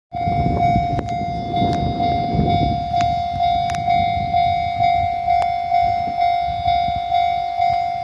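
Japanese level-crossing warning bell ringing, an electronic ding on one steady pitch repeating about twice a second, the alarm that signals an approaching train.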